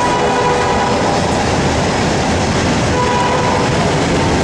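Freight cars of a long freight train rolling past close by: a steady, loud rumble of wheels on rail. A faint high steady tone rides over it, dropping out about half a second in and coming back near the end.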